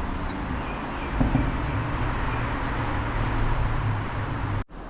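Steady outdoor background noise with a low, even hum that comes in about a second in. It cuts off abruptly near the end.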